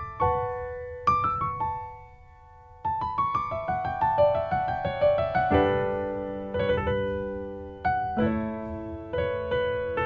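Piano music: single notes in quick rising runs, a short quieter stretch about two seconds in, then fuller chords from about halfway.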